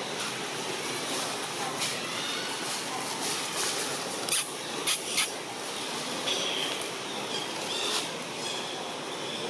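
Steady outdoor background hiss with a few sharp crackles of dry leaves about halfway through, as a macaque walks over leaf litter, and a few short high chirps near the end.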